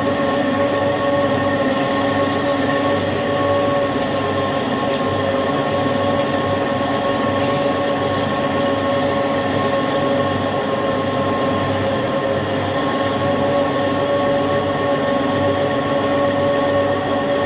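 CNC lathe drilling with a 47 mm drill: a steady, continuous cutting noise with a steady high whine of several tones riding on it.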